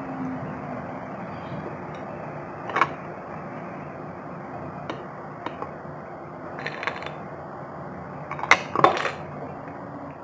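Ice clicking and crackling in short, sharp snaps, a few scattered and then two quick clusters near the end, over a steady low hum.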